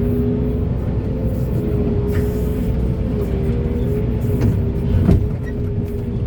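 Heavy diesel earthmoving machinery running steadily, a deep low engine sound with a steady whine above it, and a knock about two seconds in and a louder one about five seconds in.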